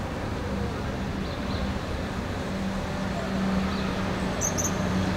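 Urban street ambience: a steady rumble of traffic with a low engine hum that swells about halfway through, and a few faint high chirps from birds.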